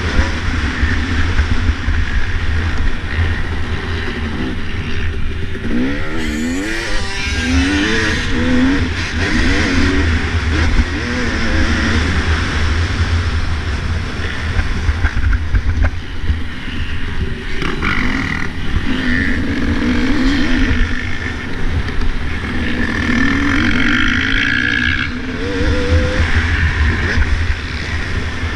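Dirt bike engine revving up and down as the rider accelerates and lets off, with quick rises and falls in pitch a few seconds in, heard from a helmet-mounted camera over a heavy steady wind rumble.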